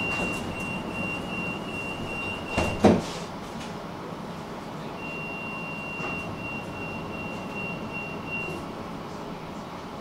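Tram running, a steady rumble, with a thin high steady tone sounding twice for a few seconds each time and one loud sharp knock a little under three seconds in.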